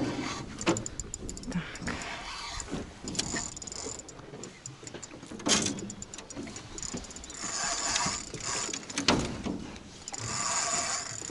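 Fishing reel clicking and whirring in runs as a hooked fish is played from the boat, with two sharp knocks midway.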